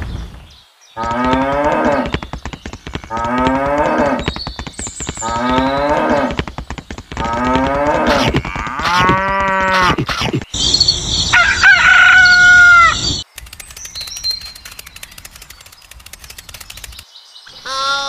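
Farm-animal sound effects: a cow mooing, the same call four times in a row about two seconds apart, followed by a wavering bleat-like call and then a loud, shrill call that falls in pitch.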